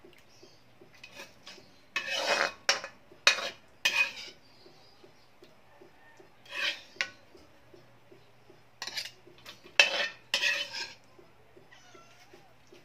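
Metal ladle scraping the inside of a wok and knocking against a bowl while sauce and vegetables are scooped out. The scrapes and clinks come as separate short strokes in a few clusters, with quiet gaps between.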